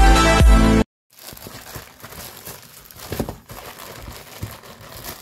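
Electronic dance music that cuts off abruptly under a second in, followed by irregular crinkling and rustling with soft clicks, loudest about three seconds in.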